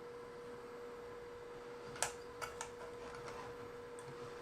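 A few sharp light clicks about two seconds in, the first the loudest, over a steady faint hum.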